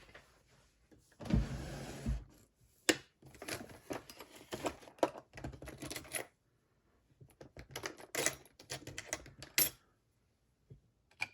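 Small metal Allen wrenches (hex keys) being handled and tried for size: irregular clicks, taps and short metallic rattles in bursts, with a heavier scrape about a second and a half in.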